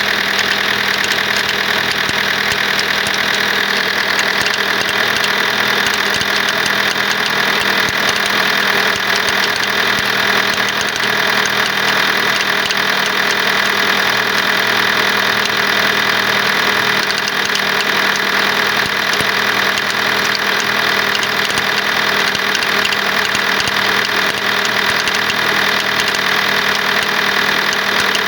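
Toyota RAV4's 2.2-litre 2AD four-cylinder diesel engine running at a steady idle, with a continuous knocking clatter that the owner cannot identify.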